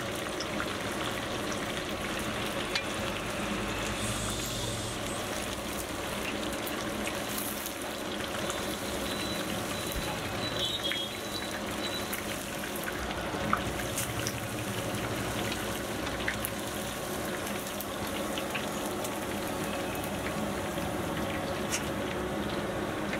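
Chicken pakodi deep-frying in a kadai of hot oil: a steady bubbling sizzle full of small crackles, with one sharper click a little past halfway.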